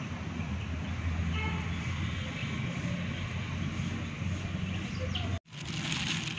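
Steady low rumble of road traffic with a low hum underneath. The sound drops out for an instant about five seconds in, after which a plastic bag crinkles.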